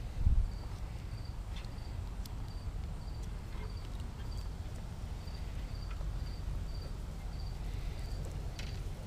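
A cricket chirping steadily, a short high chirp about twice a second, over a steady low rumble, with a soft bump just after the start and a few faint ticks.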